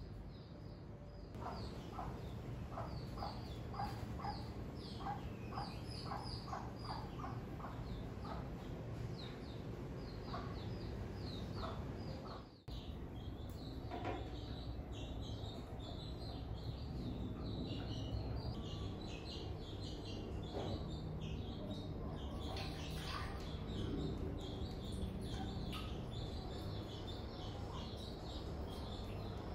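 Small birds chirping in quick runs of short, high notes over a low, steady hum.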